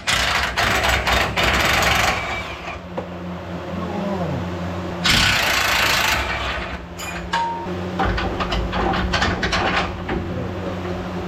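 A Chevy 1500 pickup's engine idling with a steady hum while the steering is worked side to side. There are two loud hissing rushes, one at the start and one about five seconds in, with clicks and knocks in between. It is a check of the old tie rod, which flings around in a way that is not normal.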